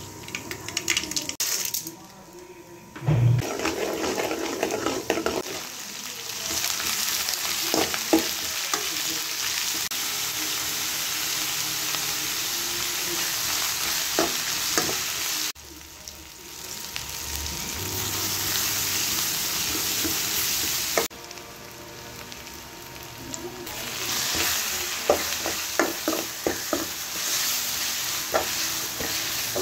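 Oil sizzling in a pan as mustard seeds, sliced onions, green chillies and curry leaves fry, with a spatula stirring and scraping against the pan in short clicks. The sizzle breaks off abruptly twice and comes back.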